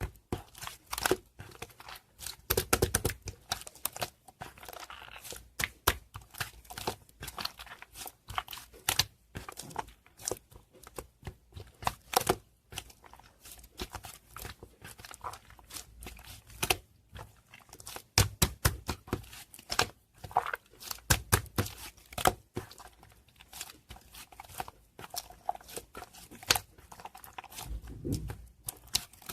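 Two-layer slime being squished, pressed and stretched by hand, giving a dense, irregular run of sticky clicks, pops and crackles with occasional low squelches.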